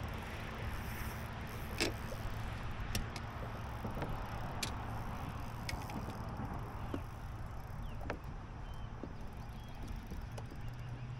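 Steady low hum and wind noise aboard a bass boat, broken by a few sharp clicks and knocks.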